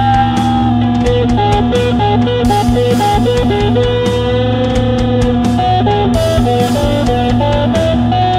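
Background music: a guitar-led blues-rock track with a drum kit and a steady beat.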